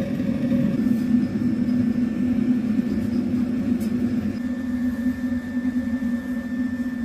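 Blacksmith's coal forge burning under forced air: a steady roar and hum from the blower-fed fire, with a faint steady high whine.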